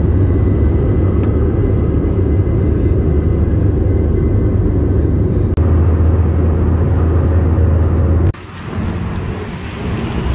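Jet airliner cabin noise at a window seat beside the wing: a loud, steady low rumble of the engines and rushing air. About eight seconds in it cuts off suddenly to quieter street and traffic noise.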